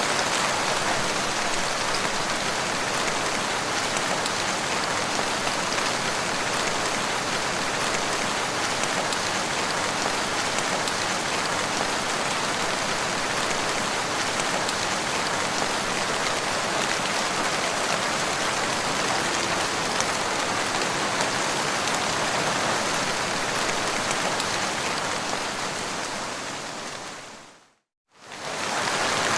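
Steady rain falling, a dense, even hiss of drops on a surface. Near the end it fades out to a brief silence, then starts again.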